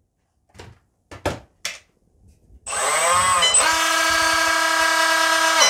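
Brushless motor of a WLtoys WL915 RC speed boat run on the bench out of the water. It gives a few short throttle blips, then spins up in a rising whine at about two and a half seconds and holds a steady high whine for about two seconds before cutting off.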